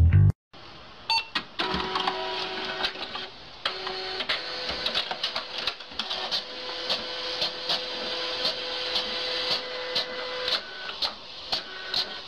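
Desktop printer running a print job: a steady motor whine with regular mechanical clicks about twice a second as the paper feeds through.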